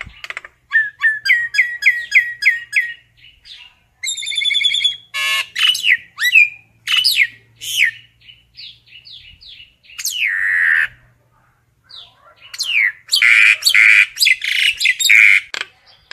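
Common myna calling: a varied run of whistles, a quick series of short falling notes at about three a second, and harsh rasping squawks, loudest near the end.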